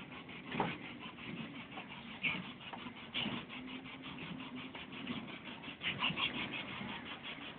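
Miniature kiddie train running on its small-gauge track, with a fast, even clicking of about eight ticks a second and occasional squeaks.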